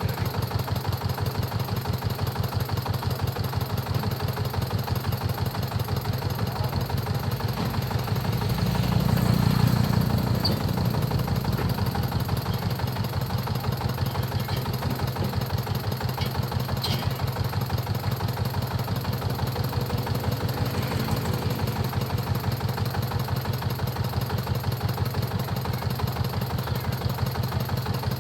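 Diesel engine of a corn-threshing machine running steadily at idle with an even, rapid beat. It swells louder for a few seconds about nine seconds in, then settles back.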